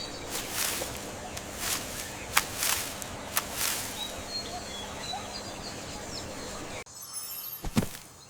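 Jungle-style nature ambience: birds chirping over a steady background, with several sharp clicks in the first few seconds. The background cuts to a quieter one about seven seconds in.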